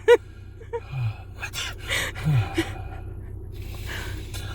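A person gasping and breathing hard in short breathy bursts, with a couple of brief low falling grunts, in the middle of a sneezing fit.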